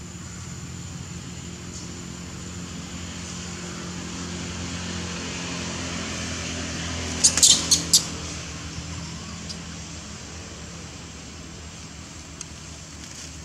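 A motor engine running steadily, growing louder to about seven seconds in and then fading, with a quick run of four or five sharp clicks about seven seconds in.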